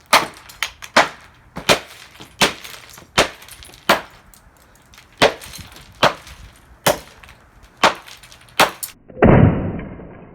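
Repeated hammer blows smashing a plastic alarm clock radio, sharp cracks about once a second or faster. About nine seconds in comes a louder crash lasting about a second.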